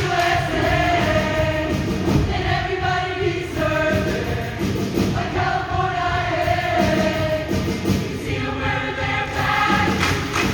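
Show choir singing in many voices over a loud instrumental accompaniment with a steady beat.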